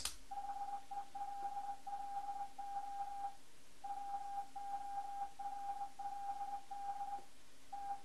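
Morse code from the Linux 'morse' program: a single steady beep keyed on and off in dots and dashes, spelling out lines of text, with two longer pauses between words. It plays from computer speakers and is picked up by the microphone.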